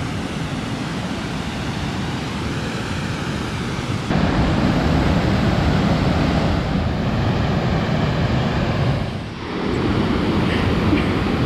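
Steady roar of falling, rushing river water at a waterfall. It gets louder about four seconds in and dips briefly near nine seconds.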